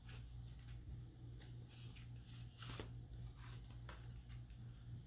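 Faint rustling and a few soft ticks of paper being handled, over a low steady hum.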